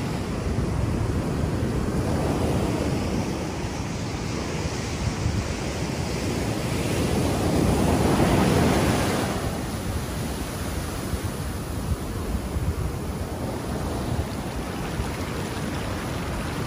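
Ocean surf breaking and washing up a sand beach, a steady rush of water with wind on the microphone; one wave surges louder about eight seconds in.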